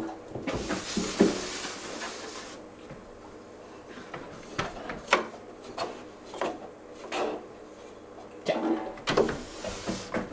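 Dog sniffing and nosing at the holes of an aluminium scent-search board, with a hiss of rapid sniffing for about two seconds near the start and scattered sharp taps and knocks of nose and paws against the metal.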